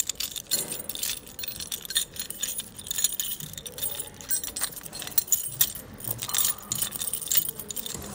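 Continuous metallic jingling and clinking, like a bunch of keys or small metal pieces being shaken, made of many small irregular clicks, which stops abruptly at the very end.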